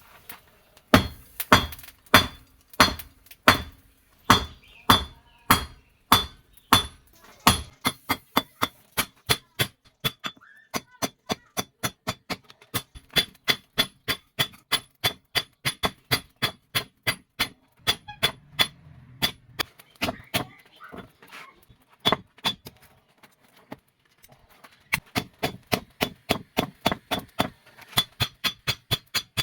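Hammer forging steel on an anvil, each blow ringing. Heavy blows come about two a second at first, then give way to quicker, lighter strikes with a few short pauses.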